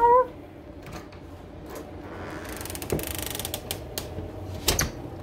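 A cat meows once, briefly, right at the start. Then a door latch and handle rattle for about a second and click, and a sharp clack comes near the end as the door is opened.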